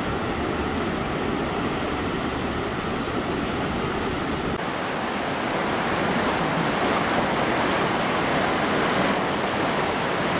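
Floodwater of the South Esk River rushing through the gorge: a steady, dense rush of white water. About halfway through it turns a little louder and brighter.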